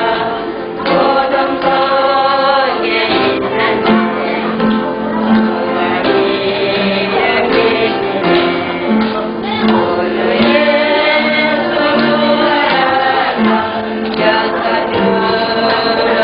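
Church praise singing: a group of voices singing a hymn together with musical accompaniment, in long held notes.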